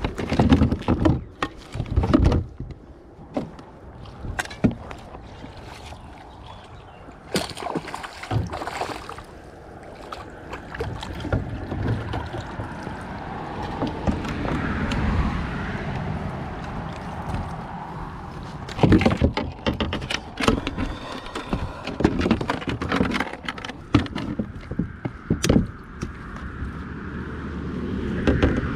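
Scattered knocks and bumps of fishing gear and hands against a boat's hull, over a rushing noise that swells in the middle and fades again.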